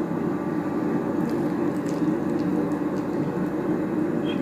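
A steady low hum, with a few faint light clicks over it.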